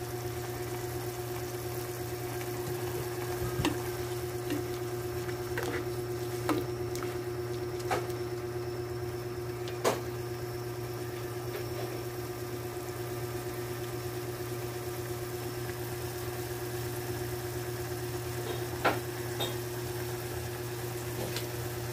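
A plastic ladle stirs vegetables and tofu in a saucepan of simmering broth, knocking lightly against the pot several times in the first half and twice more near the end. A steady low hum runs underneath.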